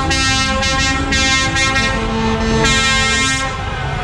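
Lorry air horns sounded in several blasts as a truck convoy drives past, over the low rumble of the truck engines and road noise.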